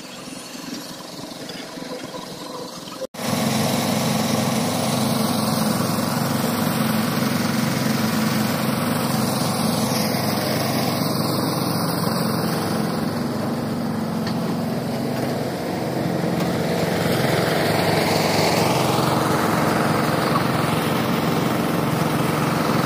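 A small engine running steadily. It cuts in suddenly about three seconds in, after a quieter stretch, and holds an even level from then on.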